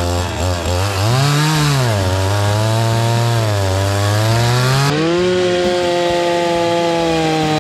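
An engine running under load and revving, its pitch sinking and swelling over the first few seconds before it settles to a steadier, higher note with less hiss about five seconds in.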